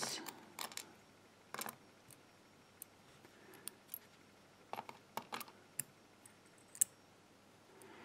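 Irregular small metallic clicks and taps of steel tweezers picking up tiny lock pins and setting them into the pin chambers of a dimple lock plug during reassembly.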